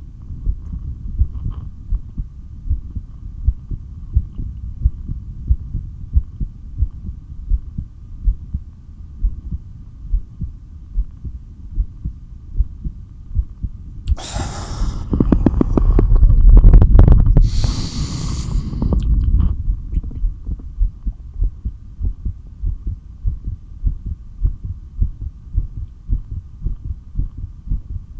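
Heartbeat heard through a stethoscope, a steady pounding run of low thumps. Around the middle, one breath between breath-holds: two loud rushes of air, a few seconds apart, heard over the beat.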